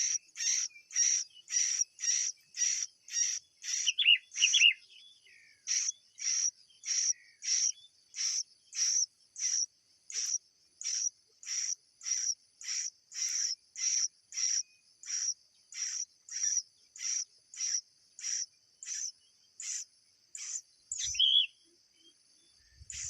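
A high, sharp chirp repeated very regularly about twice a second over a steady high-pitched drone, pausing briefly about five seconds in. A couple of short bird calls cut in near the start and again near the end.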